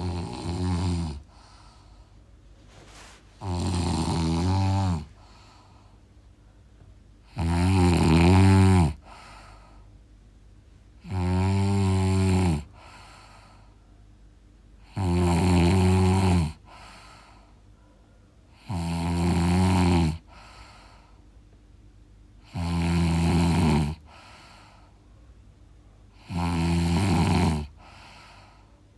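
Loud snoring: eight long, rattling snores at an even pace of about one every four seconds, each followed by a short, fainter breath.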